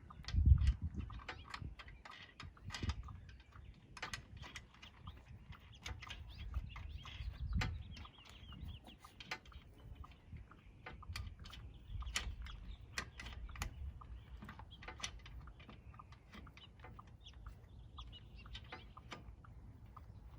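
Scattered clicks and knocks of lug nuts being threaded by hand onto the wheel studs of a mounted spare tire, with a heavier thump about half a second in.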